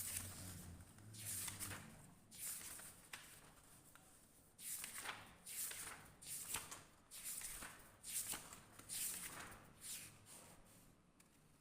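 Writing by hand: a run of short, faint scratchy pen strokes, roughly one or two a second, with a brief pause partway through.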